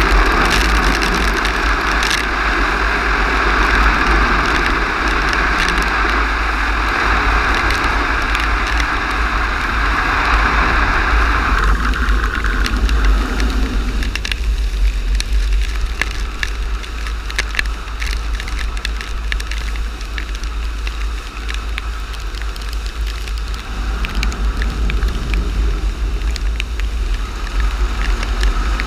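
Automatic car wash with rotating brushes scrubbing over the car's bodywork while water sprays on it: a steady hiss that is loudest for about the first twelve seconds and then drops, with crackling spatter throughout and a deep rumble underneath.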